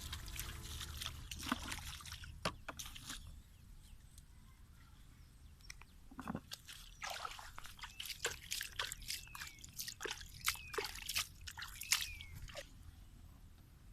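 Water sloshing and splashing in short, irregular strokes with drips, in two spells: for the first three seconds and again from about six seconds in until near the end.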